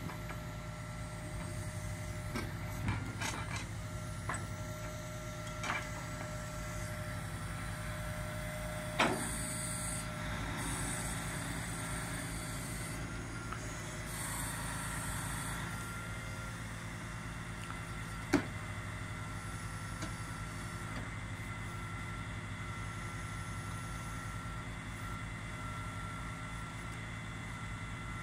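Boom truck's engine running steadily, powering the knuckle-boom crane, with a few sharp knocks, the loudest about nine and eighteen seconds in.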